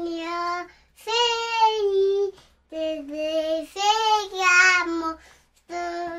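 A child singing a melody in short phrases of held notes, with brief breaks between the phrases.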